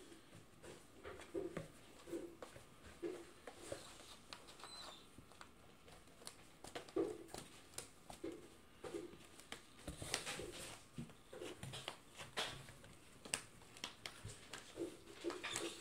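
Cats playing in and on a cardboard box: irregular scratches and scrapes with soft dull knocks on the cardboard, busiest around the middle and near the end.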